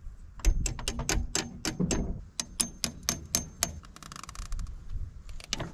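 A wrench clicking and clinking against the steel injector line fittings of a Cummins diesel as a stuck line is worked loose: a quick irregular series of sharp metallic clicks with a slight ring, then a brief fast rattle, then two more clicks near the end.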